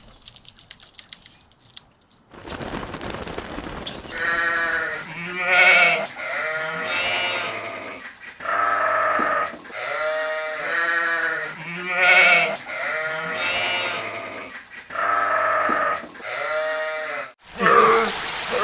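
Livestock bleating over and over, about a dozen calls of half a second to a second each, one after another, over a steady outdoor hiss. The calls stop abruptly near the end.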